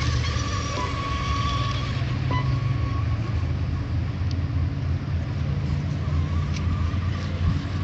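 Radio-controlled model hydroplanes racing at speed, their motors giving a thin, steady high whine that fades about halfway through and comes back near the end, over a steady low rumble.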